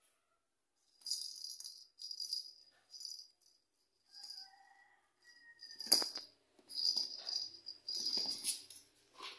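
A small bell inside a plastic lattice cat-toy ball jingling in short bursts as a kitten bats and rolls it on a wooden floor, with one sharp knock about six seconds in.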